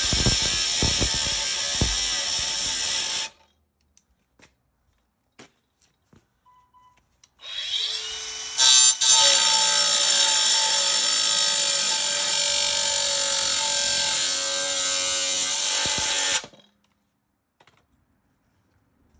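A power tool cutting into the metal casing of a compressor, with a high whine over a harsh hiss. It stops about three seconds in, and after a few seconds' pause it spins back up and cuts steadily for about nine seconds before stopping again.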